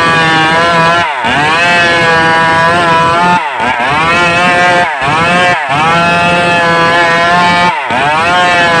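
Stihl MS381 two-stroke chainsaw running at high revs while cutting timber. Its engine note dips sharply and recovers about five times.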